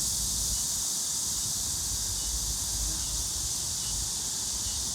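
Steady high-pitched hiss of a summer insect chorus, over a low uneven rumble.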